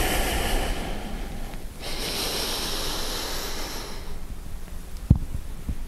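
A man's slow, deliberate yoga breathing, clearly audible: a long exhale that ends about a second and a half in, then a long inhale of about two seconds. A short click comes near the end.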